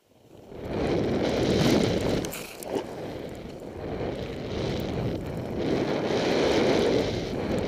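Wind rushing over the camera microphone as a snowboarder drops off a cliff and rides down through deep powder snow. It rises from near silence within the first second, eases a little around three seconds in and swells again later.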